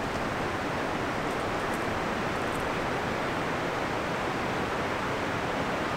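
Steady rushing of water from a nearby mountain creek or waterfall, a constant even roar with no change in level.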